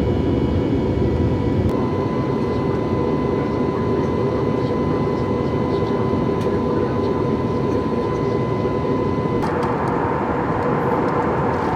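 Steady engine and airflow drone heard inside the cabin of an Airbus A320neo, with its Pratt & Whitney geared turbofans. A thin steady whine runs over the drone and shifts slightly in pitch twice, about two seconds in and again near the end.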